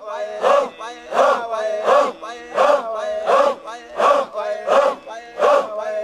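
A crowd of Papuan fighters chanting in unison: a loud rhythmic cry repeated about every 0.7 seconds, with held notes in between.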